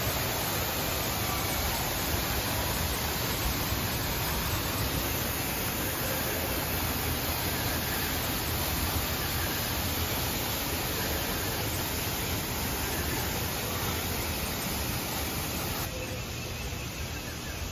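Waterfall pouring onto rockwork: a steady rush of falling water that drops to a quieter background about two seconds before the end.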